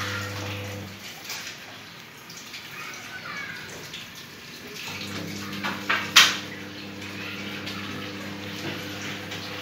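A steady hiss like running water, with a low steady hum that drops out for a few seconds and returns. A sharp click or knock about six seconds in.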